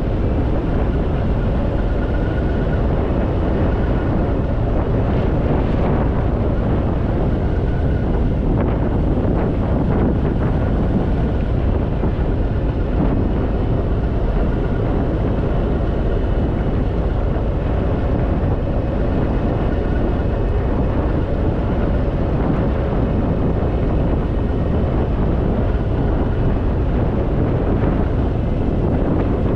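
Harley-Davidson Fat Boy motorcycle under way, a steady rush of wind on the microphone over the running V-twin engine.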